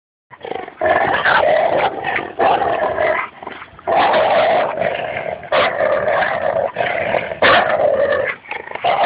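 Labrador Retriever growling during a tug-of-war over a rope toy: a string of growls, each lasting about half a second to a second, with short breaks between.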